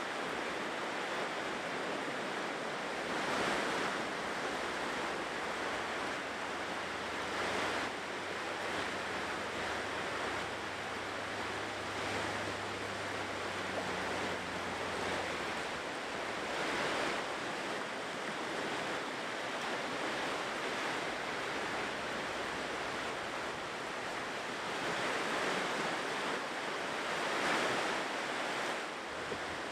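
Ocean surf on a shore: a steady rush of water, with waves breaking in swells every few seconds, the biggest near the end.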